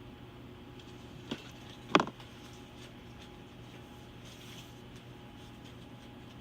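Steady low hum of hospital equipment, broken by two short sharp clicks, one a little over a second in and a much louder one about two seconds in.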